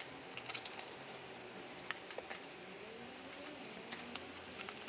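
Faint scattered small clicks and rubbing of hands handling the small engine's detached carburetor and its housing.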